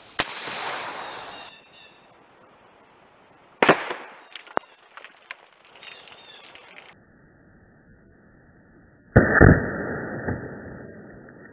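Bob Dean .54 calibre big bore PCP air rifle firing a slug through a water-filled plastic jug: a sharp report that trails off over a second or so. It is heard three times, about 3.5 and 5.5 seconds apart, as the shot is replayed; the last is the loudest and sounds deeper and duller.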